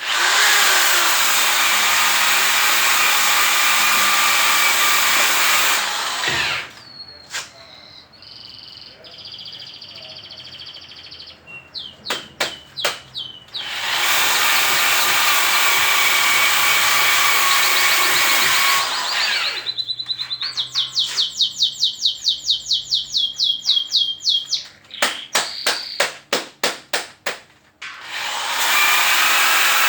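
A power tool polishing a steel pot runs with a loud, even hiss, stopping after about six seconds, running again through the middle and starting once more near the end. In the pauses small birds sing: whistled notes, then a fast trilling chirp repeated about four times a second, and a few sharp calls.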